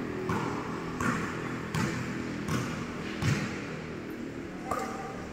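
Basketball bouncing on a hardwood court, a few thuds in the middle, the loudest about three seconds in, with short sneaker squeaks on the floor near the start, about a second in, and near the end.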